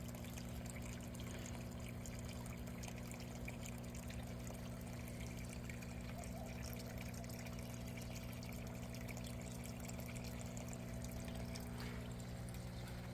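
Water steadily trickling and pouring through a backyard aquaponics system, over a constant low hum.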